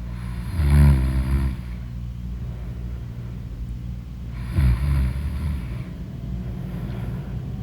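A person snoring loudly in deep sleep: two long snores about four seconds apart, with a steady low rumble between them.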